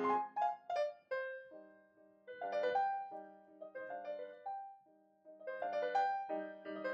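Piano music: single notes and chords struck and left to ring, with a brief lull about five seconds in.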